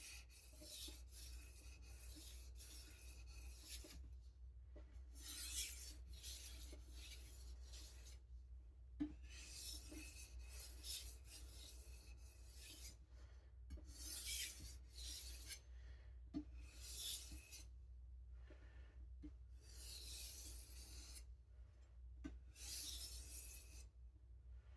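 Steel knife blade drawn over a whetstone in a series of quiet, rasping strokes, each lasting a second or two, with short pauses between them.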